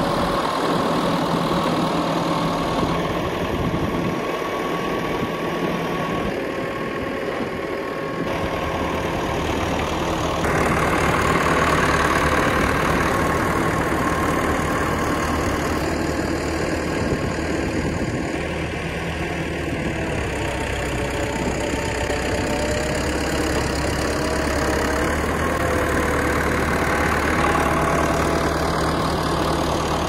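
Versatile 150 four-wheel-drive tractor's diesel engine running steadily while its front loader pushes through a snow drift, the engine note shifting a couple of times as the load changes.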